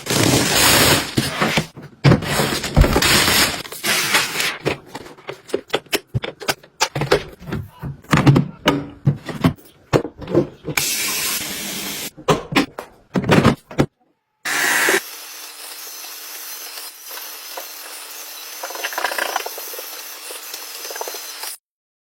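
Irregular rustling, clicks and knocks of the robot vacuum cleaner being handled. Then, about fifteen seconds in, its motor starts running with a steady hiss and a low hum, and cuts off near the end.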